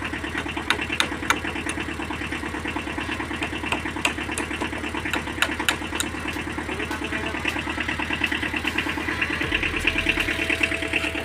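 An engine running steadily at idle with a fast, even throb, with a few sharp clicks over it.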